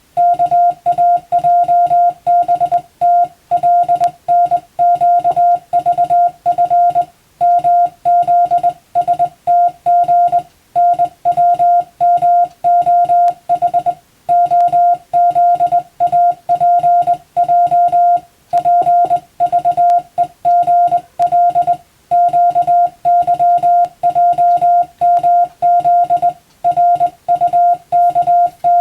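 Morse code (CW) tone sent by hand: a single steady beep keyed on and off in dots and dashes, spelling Latin-alphabet telegram text for receiving practice, with longer pauses every few seconds between words.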